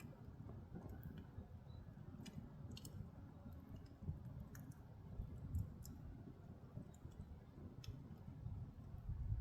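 Firewood burning in an agungi, a traditional Korean ondol firebox: a low, uneven rumble of the flames with scattered sharp crackles and pops.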